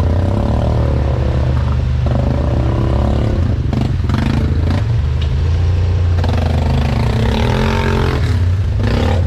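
Yamaha Grizzly ATV engine running under throttle on a trail ride, its pitch shifting up and down several times as the rider works the throttle. A few sharp knocks and clatter come through around four seconds in and again near the end.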